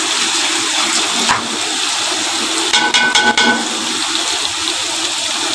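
Meat-and-onion masala frying in an aluminium pot, a steady sizzle, as chopped bitter gourd is tipped in. About three seconds in, a short metallic clinking and scraping against the pot.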